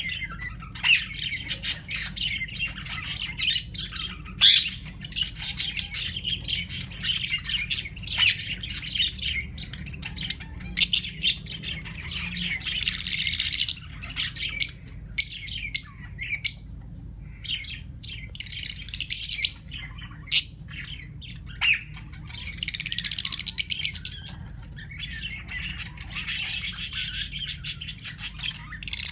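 Fischer's lovebirds chirping and chattering nonstop in high, rapid calls, with louder bouts of fast twittering now and then and sharper squawks from ring-necked parakeets mixed in.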